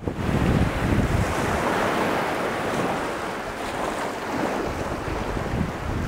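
Ocean surf washing in against rocks, a steady hiss of moving water, with wind buffeting the microphone in a low rumble that eases in the middle.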